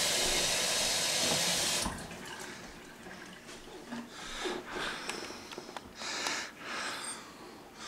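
Kitchen sink faucet running in a steady stream, shut off suddenly about two seconds in. A few soft breathy puffs close to the microphone follow.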